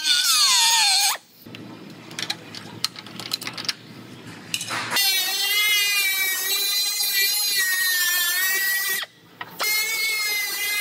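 Pneumatic cut-off tool spinning an abrasive wheel through sheet-metal body panel: a high whine that winds down in pitch in the first second, a quieter stretch with scattered clicks, then a steady high whine while cutting from about five seconds in, cutting out briefly near nine seconds before running again.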